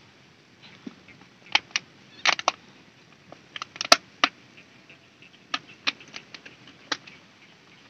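Plastic water bottle being handled and its cap worked, giving short sharp crinkling clicks at irregular intervals, in several small clusters.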